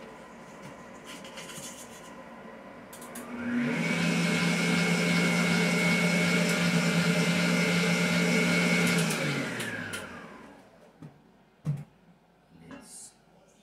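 Red electric stand mixer's motor spinning up about three and a half seconds in, running steadily for about five seconds with a high whine over a low hum, then winding down. A few light knocks follow near the end.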